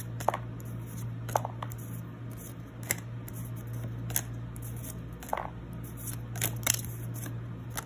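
Pokémon trading cards being slid and flicked one behind another in the hand, giving scattered crisp clicks and snaps of card stock at irregular intervals, over a steady low hum.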